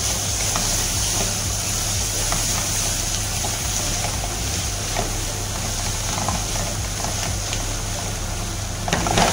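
Pot of food sizzling on the heat, a steady hiss with occasional light clicks of a spoon stirring, and a louder clatter near the end.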